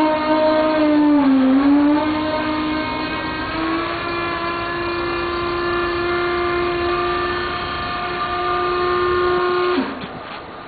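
JLG aerial work platform's motor and hydraulic pump whining steadily as the lift moves. The pitch dips briefly about a second in, settles a little higher, then cuts off suddenly near the end as the lift stops.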